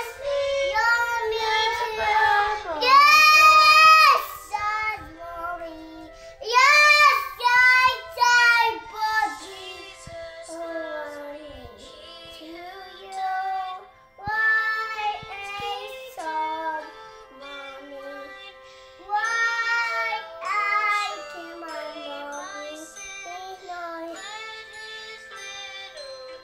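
A young girl singing in a high voice, loudest in the first ten seconds or so and softer after, with faint music underneath.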